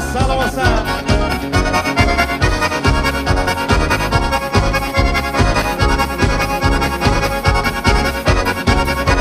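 Band music led by an accordion over a steady, driving drum and bass beat.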